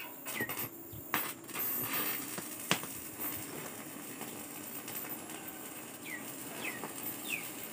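Stick welding on galvanized steel purlins: an irregular arc crackle, with a sharp click about two and a half seconds in. A bird gives short falling chirps once near the start and three times near the end.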